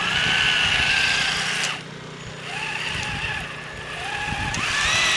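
RC truck's Titan 550 electric motor and Summit transmission whining under throttle as the tracked truck climbs a steep snow bank. The whine eases off about two seconds in, then rises again near the end.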